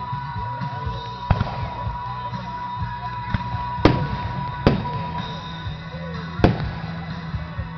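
Fireworks display: shells bursting with four sharp bangs spread across a few seconds, over a steady background with music playing.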